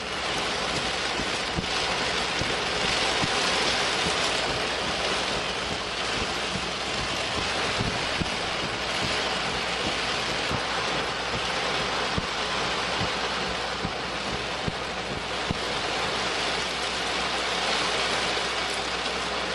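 Heavy rain beating on a car's windshield and body in strong wind, heard from inside the car: a loud, steady rush of noise that swells and eases every few seconds, with scattered small taps of drops.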